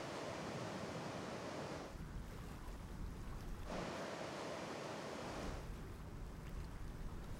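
Ocean surf washing onto a beach, heard as a steady hiss in two stretches of about two seconds each. Between them comes a low wind rumble on the microphone.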